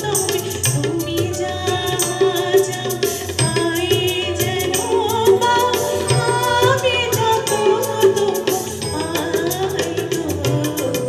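Live band music: a woman singing a melody, accompanied by tabla strokes and keyboard.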